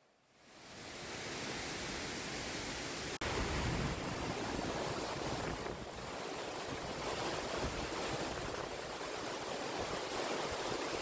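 Water rushing down a waterfall: a steady noise that fades in over the first second, with a brief break about three seconds in.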